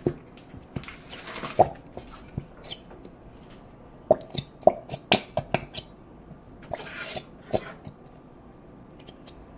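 Irregular sharp clicks and light knocks of a bowl and utensils being handled, busiest a few seconds in, with a couple of brief rustles.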